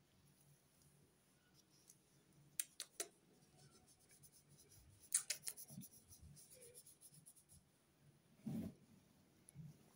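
Quiet handling noise from a hand stroking a cat's fur close to the microphone: faint scratchy rubbing with a few sharp clicks, a quick run of them about halfway through, and a short dull thump near the end.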